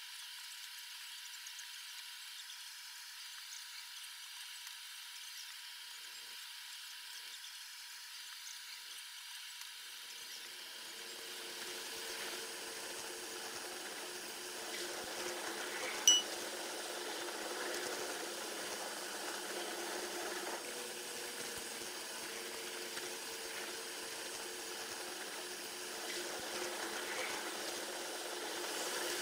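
Train-cab sound from a moving train, played back at ten times speed, so it comes out as a thin, high hissing rush with no low end. At first a faint steady high tone sits in the hiss. From about ten seconds in the rush grows fuller and a little louder, and a single sharp click comes just past halfway.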